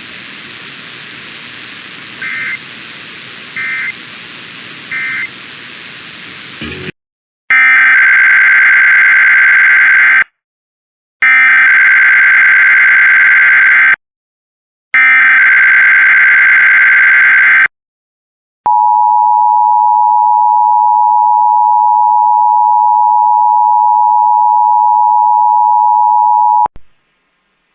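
Emergency Alert System test alert: radio hiss with three short beeps, then the three screeching bursts of the digital SAME header, each about three seconds long. Then the EAS two-tone attention signal (853 and 960 Hz) held steady for about eight seconds and cut off sharply.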